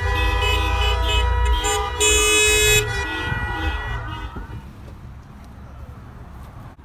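Many car horns honking at once in long, overlapping blasts at several different pitches, celebratory honking from a line of cars; the honking dies away about four seconds in.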